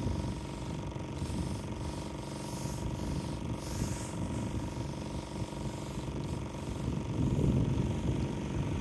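Electric pressure washer running steadily, its motor giving an even hum, while water is sprayed through a long pole lance onto a rendered wall.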